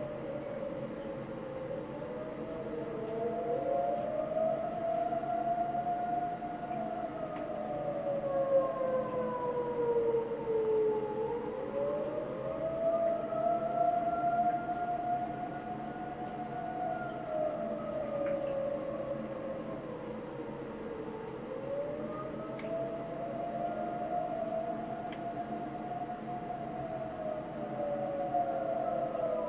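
Several outdoor tornado warning sirens sounding the Attack signal, the wail used for severe weather. Two or more sirens overlap out of step, each rising and falling in pitch about every ten seconds.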